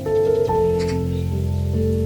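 Soft, slow piano music, held notes changing every half-second or so over a steady low bass tone.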